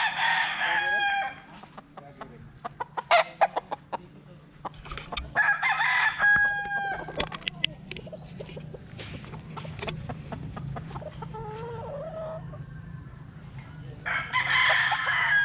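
Roosters crowing three times: once at the start, once about five seconds in with a long held final note, and once near the end. Short sharp clucks come in between.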